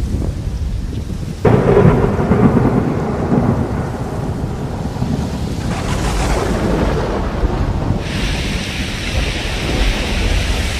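Thunder in a heavy rainstorm: a low rumble breaks into a loud, sudden crash about a second and a half in, then rolls on for several seconds. Near the end a steady rain hiss grows stronger.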